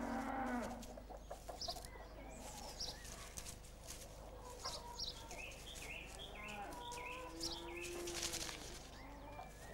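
Faint farmyard ambience: hens clucking softly, with a quick run of short high chirps about five seconds in.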